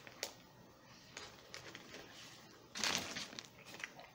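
Close-miked chewing of a mouthful of sandwich, with soft, sparse mouth clicks, and a brief louder crackle about three seconds in.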